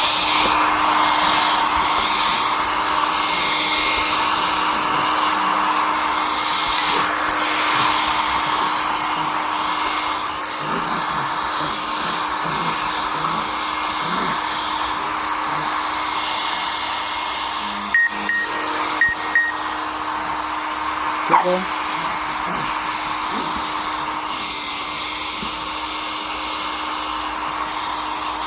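Handheld electric hair dryer running steadily: a continuous rush of blown air over a steady hum. A few brief clicks come about two-thirds of the way in.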